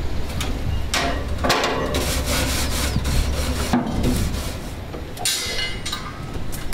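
Gas grill grate being scraped with a long metal tool: rasping strokes for about three seconds, then one more short scrape about five seconds in, over a steady low rumble.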